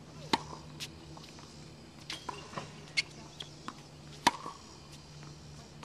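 Tennis balls struck with a racket and bouncing on a hard court during ball-machine practice: irregular sharp pops, the loudest about four seconds in, over a low steady hum.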